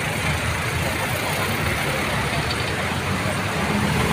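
Street traffic noise: vehicle engines running and passing, with a crowd's voices mixed in.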